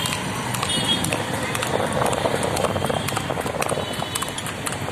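Hooves of a ridden horse clattering on an asphalt road, a quick irregular run of sharp clicks over steady street noise.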